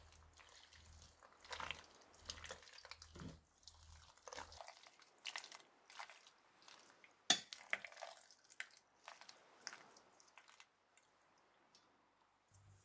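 Soft wet squishing of penne being stirred through thick béchamel sauce in a glass bowl, with irregular clicks of the utensil tapping and scraping the glass. The sharpest click comes about seven seconds in, and the sounds die away near the end.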